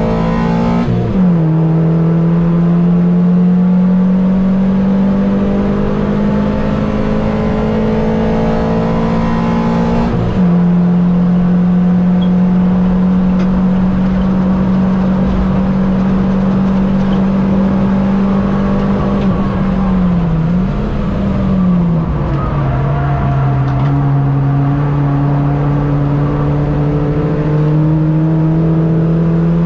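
Mini race car engine running hard. Its note climbs slowly under power and drops sharply about a second in, again about ten seconds in and again about twenty-two seconds in.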